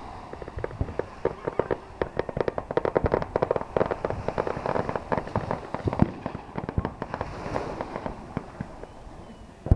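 Fireworks crackling: a dense run of rapid sharp pops, thickest in the middle, with a loud single bang near the end.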